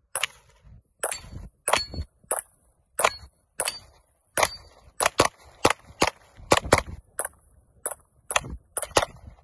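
A gun being fired rapidly in a string of about twenty shots at an uneven pace, with a few close pairs. A short ringing tone follows several of the shots in the first few seconds.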